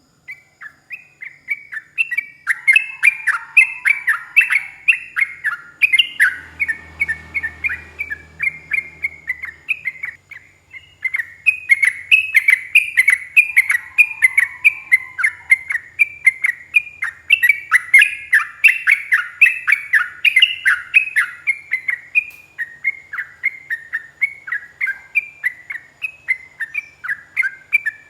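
Yellow-vented bulbul singing a long, rapid run of bubbly chattering notes, several a second. It starts abruptly and breaks off briefly about ten seconds in before carrying on.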